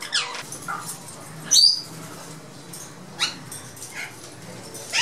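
Ringneck parakeets calling: a string of short, shrill screeches, each sweeping down in pitch, about five in all, the loudest and highest about a second and a half in.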